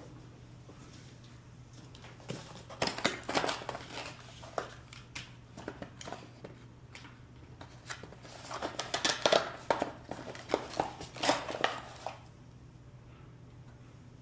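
Hands opening and handling a small cardboard accessory box and its contents: cardboard and packaging rustling and crinkling, with light taps and knocks. The handling comes in two bursts, a couple of seconds in and again past the middle, over a steady low hum.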